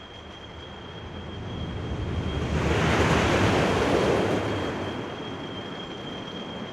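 Roller coaster train passing by: a rumbling rush that swells to a peak midway and fades away, over a steady high whine.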